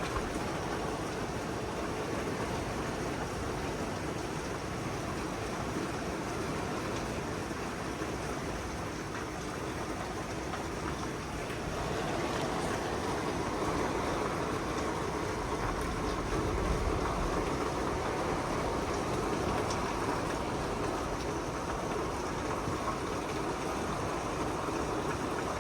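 Heavy rain pouring down steadily, getting a little louder about halfway through.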